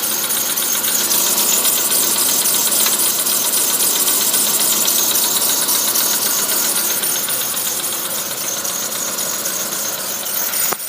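Volkswagen Polo Sedan engine running on a cold start, heard from the engine bay, with a whistle coming from under the bonnet. The sound is steady, then drops off sharply near the end.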